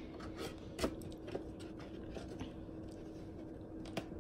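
Quiet room tone with a faint steady hum and a few soft clicks, the sharpest about a second in and another near the end.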